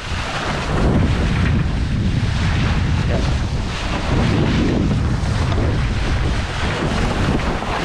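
Wind buffeting the microphone over water splashing along the hull of a Flying Dutchman dinghy under sail, a steady loud wash of noise.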